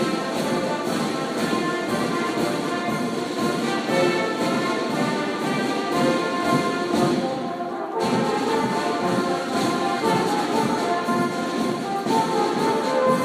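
Marching band playing: a brass melody over a steady marching drum beat from snare and bass drums. The sound thins briefly just before eight seconds in, then the full band comes back.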